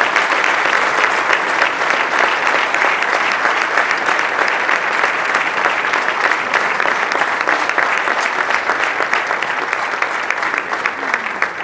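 A large audience applauding: many people clapping at once, steady and dense, starting to die away at the very end.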